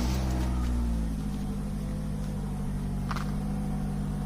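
Yamaha FZ-09's three-cylinder engine just started and idling, freshly refilled with oil after an oil change. It runs higher and louder for about the first second, then settles into a steady idle.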